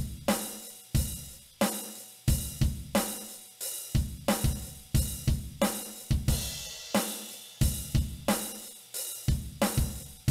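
Drum-machine beat from a Digitech RP250 played through an acoustic combo amp: kick, snare and cymbal hits in a steady, even groove with no guitar over it.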